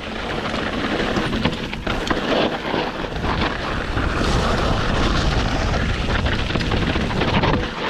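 Wind buffeting the microphone over mountain bike tyres rolling fast on loose, rocky dirt, with the bike rattling and knocking over bumps throughout.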